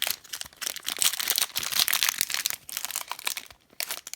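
Trading card pack wrapper crinkling and tearing as it is opened by hand, a dense run of crackles that thins out near the end.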